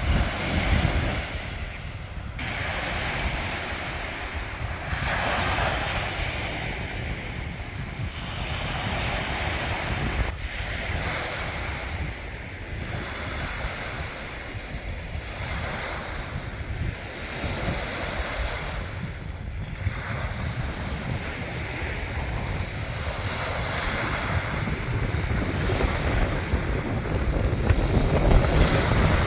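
Sea waves washing onto a beach, swelling and easing every few seconds, with wind buffeting the microphone.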